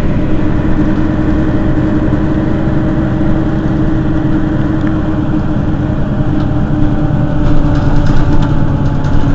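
Mercedes-Benz Citaro city bus's rear-mounted engine idling steadily while the bus stands at a stop.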